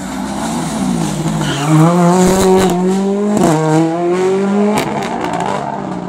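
Ford Fiesta rally car's engine slowing into a hairpin, then accelerating hard out of it. Its pitch falls, then climbs and drops abruptly twice as it shifts up, with a few sharp cracks in the middle.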